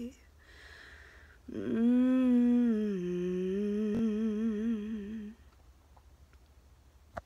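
A woman humming the song's final note unaccompanied. It is one long note that drops in pitch about halfway, wavers with vibrato, and stops about five seconds in.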